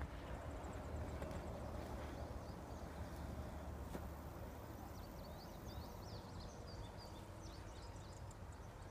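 Outdoor ambience: a steady low wind rumble on the microphone, with a quick run of high chirps from about five to seven seconds in.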